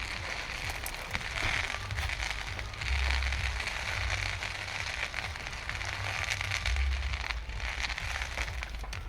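Fireworks crackling continuously, a dense run of tiny pops, with low rumbles swelling and fading every few seconds.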